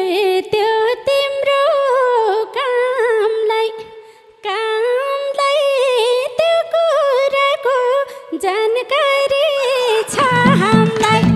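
A woman singing a Nepali dohori verse into a microphone, mostly unaccompanied, with a gliding, ornamented melody and a brief break about four seconds in. Near the end the band's instruments come back in under her.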